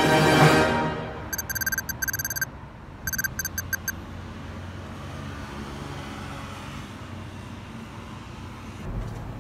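Theme music swells and cuts off in the first second. Then come two quick runs of rapid electronic beeps, a text-typing sound effect. After that, steady street ambience with a low traffic hum.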